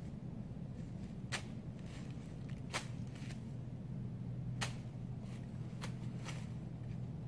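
Irregular sharp crackles, like steps in dry leaf litter, about six of them spread across a few seconds, over a steady low hum.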